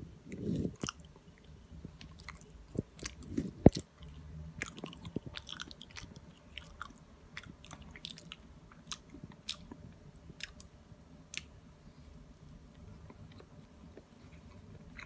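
Close-up chewing of a peeled banana, with scattered short mouth clicks and a single sharp, louder click a few seconds in.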